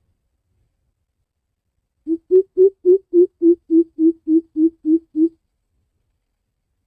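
Greater coucal calling: a series of about a dozen deep, evenly spaced hoots, roughly three a second, starting about two seconds in and stopping after about three seconds.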